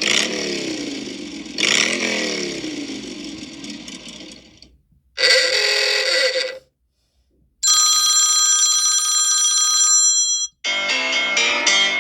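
iPhone ringtones and alert tones played one after another with short silences between. First comes a tone whose pitch sweeps up and down, repeating twice, then a short tone about five seconds in, then a held bright chime from about eight seconds, and a quick run of plucked notes near the end.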